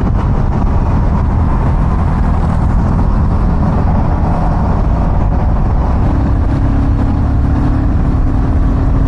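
Motorcycle riding along the road, its engine running steadily under a rush of wind on the microphone. About six seconds in, a steady hum note comes in and holds.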